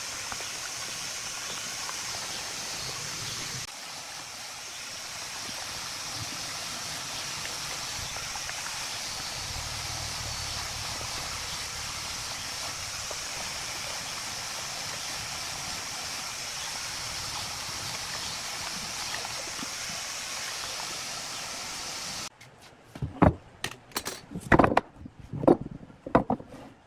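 A steady stream of water pours into a plastic basin of soapy water, with splashing as a plastic wheel is washed in it. About 22 seconds in, it cuts off sharply, and several sharp knocks follow as pine blocks are set down on a wooden workbench.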